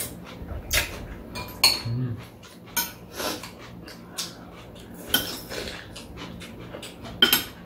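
Metal spoons and chopsticks clinking and scraping against bowls while eating, in scattered sharp clinks, a few of which ring briefly.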